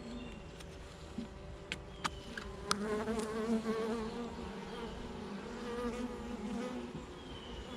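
Honeybees buzzing around an opened hive: a wavering hum that swells about three seconds in. A few sharp clicks sound in the first three seconds.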